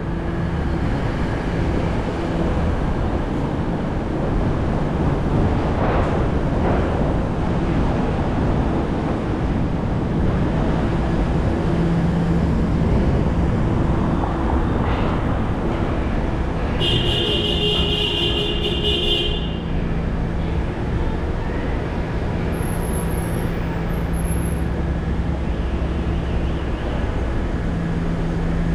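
Steady road and traffic noise from a car driving through city streets: a continuous rumble with a low, steady hum. A little past the middle, a shrill high-pitched tone sounds for about two and a half seconds, then stops.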